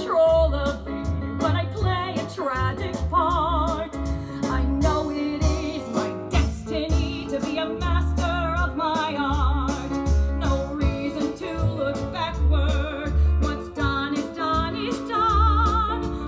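A woman singing a show tune over an instrumental backing track, holding notes with a wide vibrato above a steady pulsing bass.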